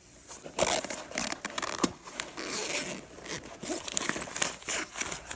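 Hands rummaging inside a nylon bag: the fabric rustles and crinkles in irregular bursts, with its zipper rattling.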